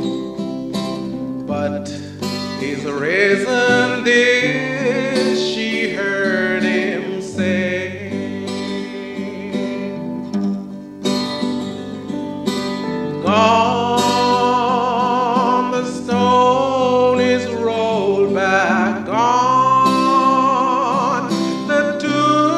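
A man singing a gospel song solo, accompanying himself on acoustic guitar, with long held notes and a wide vibrato.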